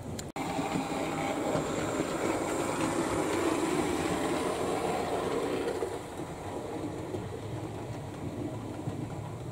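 Bachmann Fowler Class 3F OO gauge model steam locomotive and its coaches running on the layout track: a steady motor-and-wheel rumble, louder for the first six seconds as the train passes close, then fading as it moves away. A brief click and dropout just after the start.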